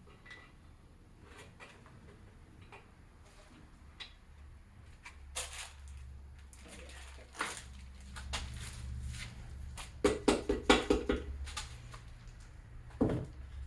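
Metal hand tools and engine parts clinking and knocking during engine assembly, with scattered clicks, a quick run of rapid clicks about ten seconds in and a single heavier knock near the end.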